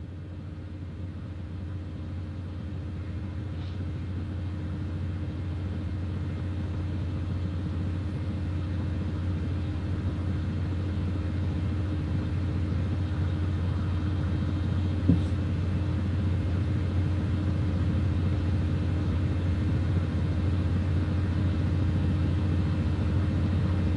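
Steady low hum of room noise picked up by a webcam microphone, growing gradually louder, with one faint click about fifteen seconds in.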